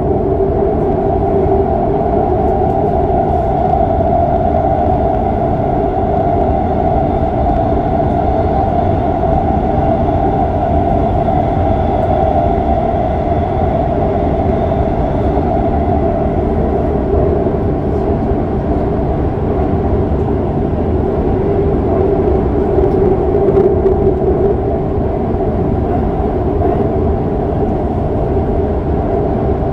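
Shinbundang Line subway train running at speed through a tunnel: a steady rumble with a constant drone held at two pitches.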